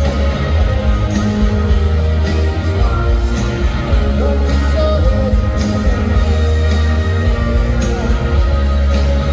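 Live rock band playing loudly through a concert PA, with heavy bass and steady drum and cymbal hits.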